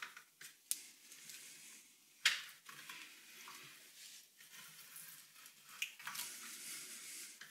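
Rotary pipe cutter turning around a trolling motor's shaft tube, its cutting wheel faintly scraping as it scores the tube, with a few sharp clicks of the tool, the loudest about two seconds in.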